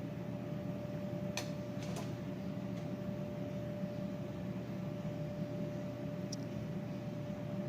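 Steady electrical hum and buzz of a powered-on Neotec NT 25E CRT arcade monitor on the bench, with a few faint ticks from a small tool turning its colour adjustment pots.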